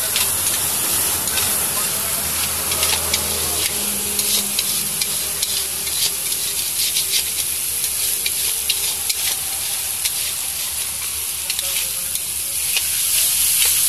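Thick chicken masala sizzling in a metal kadai while a metal spatula stirs and scrapes through it, with frequent sharp clicks of the spatula against the pan that thin out near the end.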